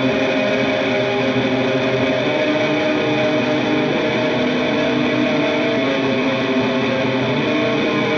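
Music: a distorted electric guitar with effects, its notes held in a steady drone with no clear beat.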